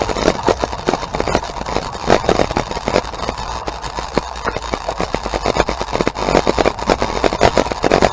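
An engine running, with a rapid, uneven ticking over a steady low hum: the noise being tested.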